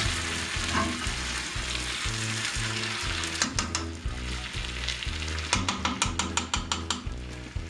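Sliced potatoes frying in oil in a frying pan, with a steady sizzle. A metal fork and spatula scrape and click against the pan as the potatoes are stirred, in quick runs of clicks a little past the middle and again later.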